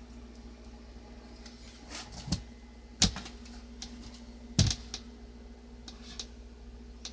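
Olivetti Underwood Studio 44 portable typewriter's mechanism giving a handful of single sharp clacks, spaced irregularly about a second or more apart rather than in a typing rhythm. A steady low hum sits underneath.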